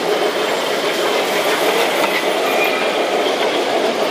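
Model train of a streamlined New York Central Commodore Vanderbilt locomotive and tender running past on metal toy-train track: a steady, even rolling rattle of wheels on rail.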